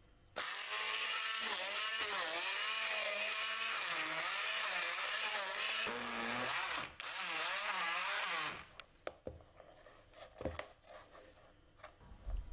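Electric stick blender running as it minces cooked chicken breast, its motor pitch wavering up and down as the blade bites into the meat. It stops about seven seconds in, runs again for under two seconds, then a few light knocks follow.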